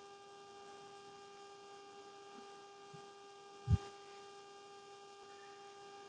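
Faint steady electrical hum, a constant pitched whine with evenly spaced overtones. One soft low knock comes a little past halfway.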